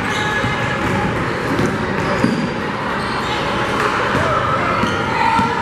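Basketball bouncing on a hardwood gym floor during play, with scattered voices and crowd chatter echoing in the gym.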